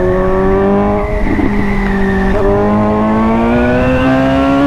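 Suzuki GSX-S750's inline-four engine through an aftermarket Austin Racing titanium exhaust, pulling hard under acceleration. The engine note holds steady, breaks briefly about halfway through, then climbs steadily in pitch as the revs rise.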